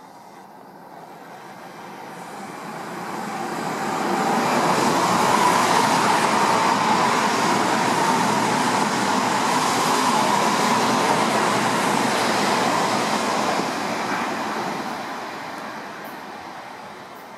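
Odakyu electric commuter train passing through a station without stopping. Its running noise builds over a few seconds, holds steady for about ten seconds, then fades away.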